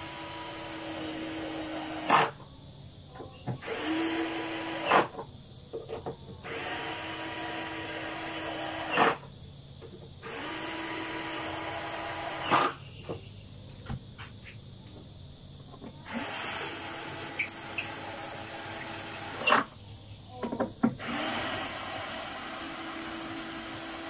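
Cordless drill driving screws into a speaker cabinet's lid: about six runs of steady motor whine, each one to three seconds long with short pauses between. Most runs end in a sharp knock.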